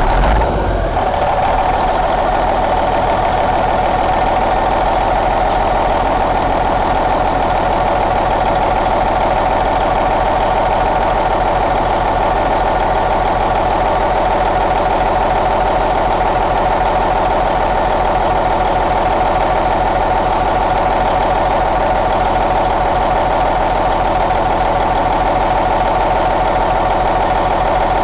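A 1999 Cummins N14 CELECT+ inline-six diesel engine, just started, settling within the first second into a steady, even idle that runs unchanged.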